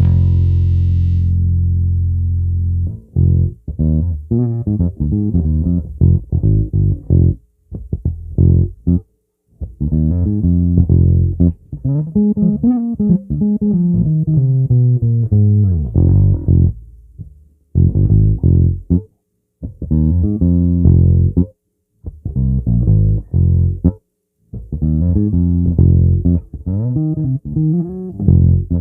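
Squier Classic Vibe '50s Precision Bass played through a Fender Rumble 100 bass amp, with no other instruments. A long, low note rings for a few seconds, then comes a string of plucked phrases broken by short pauses. Midway, one run climbs in pitch and comes back down.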